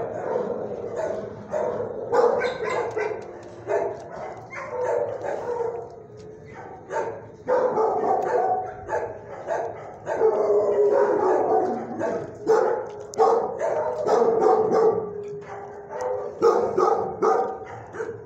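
Dogs in shelter kennels barking repeatedly, several short barks a second, overlapping throughout.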